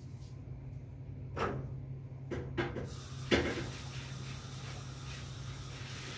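A few short knocks, the loudest about three seconds in, then a steady hiss that starts at about the same moment and cuts off at the end, over a constant low hum.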